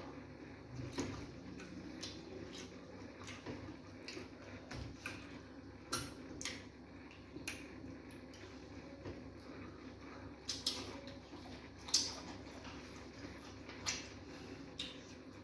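Close-up eating sounds of fufu and banga soup eaten by hand: chewing, wet lip smacks and mouth clicks, with fingers squelching in a soup bowl. Sharp clicks come at irregular intervals, the loudest about twelve seconds in.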